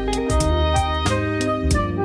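Instrumental music: sustained melodic notes over a bass line, with frequent short sharp hits.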